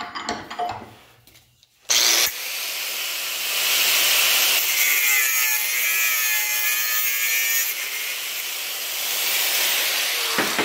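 Handling clatter, then about two seconds in an angle grinder starts with a sudden onset and cuts through a small metal strip clamped in a bench vise, trimming off the excess length of a homemade brake line clip. The grinder's whine dips and recovers in pitch as the disc bites into the metal.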